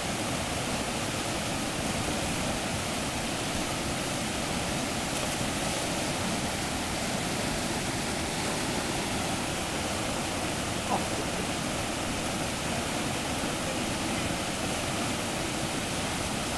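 Whitewater rapids rushing in a steady, even roar of churning water, with one brief click about two-thirds of the way through.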